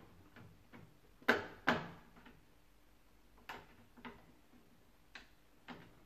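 Plastic clicks and knocks as the electronic board's clip is fitted back into an Indesit washing machine's control panel: two louder snaps a little over a second in, then a few lighter clicks.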